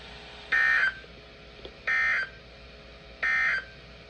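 Three short bursts of Emergency Alert System SAME digital data tones, each about a third of a second long and a little over a second apart: the end-of-message code that closes a weather alert broadcast.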